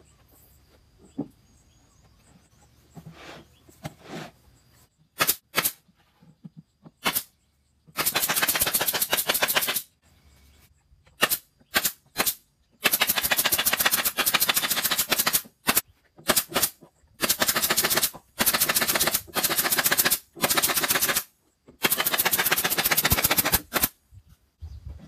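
Cordless drill-driver driving screws into the MDF panels of a subwoofer box, in several bursts of one to three seconds with short pauses between, each with a rapid rattling pulse.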